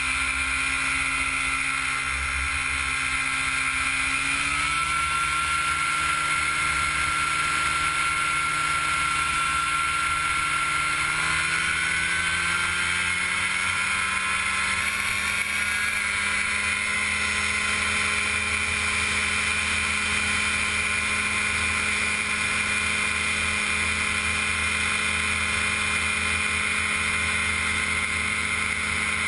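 Gyrobee gyroplane's engine and propeller running steadily at high power. The revs step up about four seconds in and climb again between about eleven and thirteen seconds, then hold.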